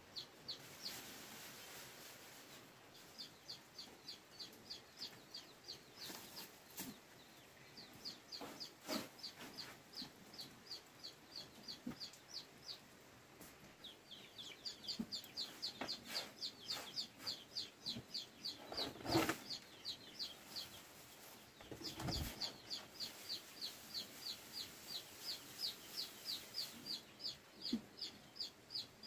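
Chicks peeping in long runs of short, high, falling notes, about four a second, with a few pauses. A few knocks and thumps come in between, the loudest about two-thirds of the way through.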